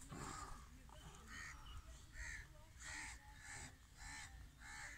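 Repeated harsh animal calls, evenly spaced at about three every two seconds.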